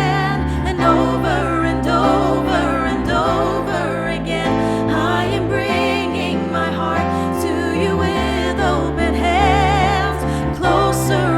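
Worship band music: a singer holds long notes with vibrato over steady low chords from the band.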